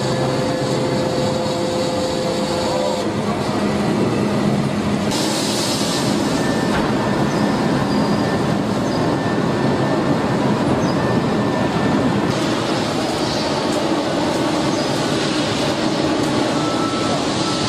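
Heavy steelworks machinery running steadily, a dense rumbling noise with some faint squealing, and a brief burst of hissing about five seconds in.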